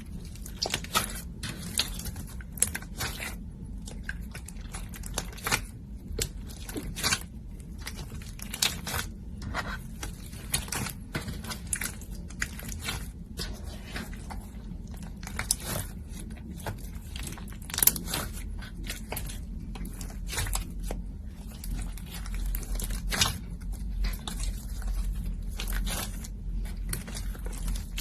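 Hands working slime: pressing, stretching and pulling it, giving irregular sticky clicks and pops over a steady low hum.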